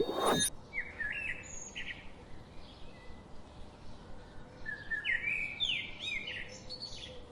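Songbird chirping: quick, repeated high calls in two bouts, one about a second in and another from about five seconds in. There is a brief swish right at the start.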